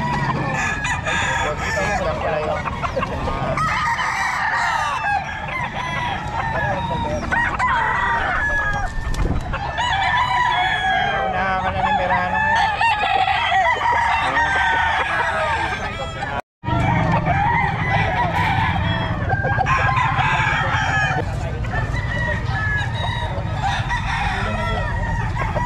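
Many roosters crowing and clucking at once, their calls overlapping without pause over a steady low rumble. The sound cuts out for a moment about two-thirds of the way through.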